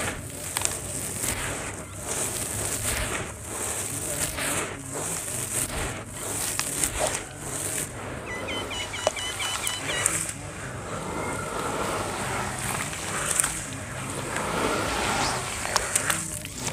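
Wet gritty sand chunks being squeezed and crumbled by hand in a basin of water: repeated irregular gritty swishing, sloshing and splashing.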